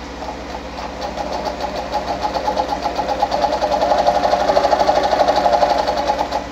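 Pfaff 230 sewing machine sewing a straight stitch at its longest stitch length, a fast, even mechanical clatter. It picks up about a second in and stops just before the end.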